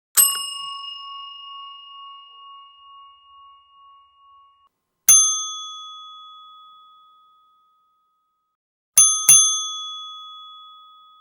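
Front-desk service bell struck: one ding that rings on with a slight waver for about four seconds, a second slightly higher-pitched ding about five seconds in, then a quick double ding near the end, each ring dying away slowly.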